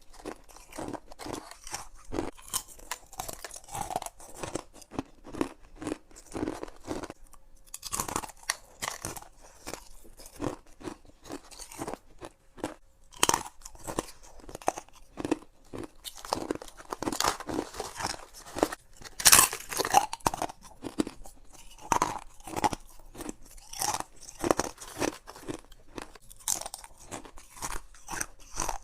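Close-up chewing of frost-coated ice cubes from a humidifier-shaped ice tray: a continuous, irregular run of sharp crunches, loudest about two-thirds of the way through.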